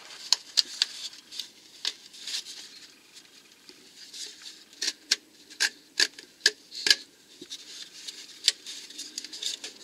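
Irregular sharp clicks and rubbing from plastic clips and a plastic cover being handled and pressed into place by gloved hands on a car's front suspension, with a cluster of quicker clicks about halfway through.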